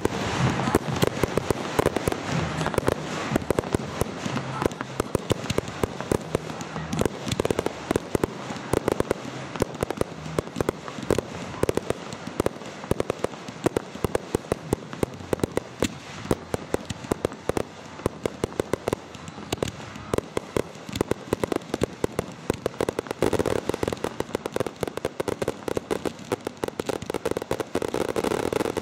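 Aerial fireworks bursting in a dense barrage: sharp bangs and crackles, many each second, overlapping with no pause.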